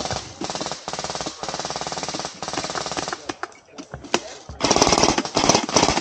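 Airsoft replica M2 heavy machine gun firing rapid shots in bursts of about a second each, with a lull a few seconds in and a louder, longer burst near the end.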